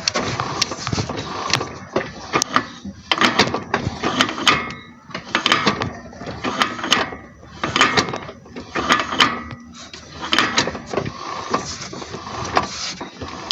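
Honda Civic driveshaft's inner tripod joint worked back and forth by hand, clicking, knocking and rattling in irregular bursts. The joint has play, and its boot is torn.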